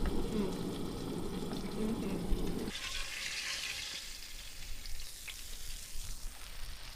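Floured fish fillets frying in hot oil, sizzling. A louder low rumble runs under it for the first few seconds and stops abruptly about three seconds in, leaving the sizzle on its own.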